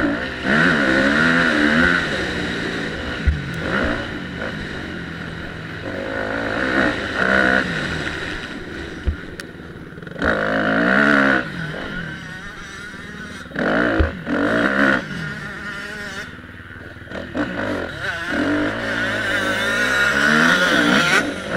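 Motocross dirt bike engine ridden hard on a dirt track, revving up in loud surges and falling off between them, its pitch rising and falling again and again. A few sharp knocks stand out over it.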